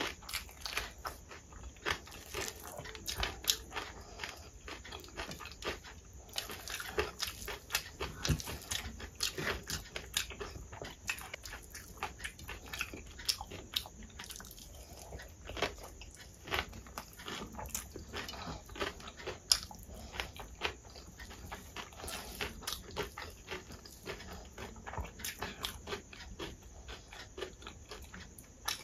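Close-miked chewing and crunching of a mouthful of rice with crispy shoestring potato fries (jhuri aloo fry): many irregular crunches and mouth clicks.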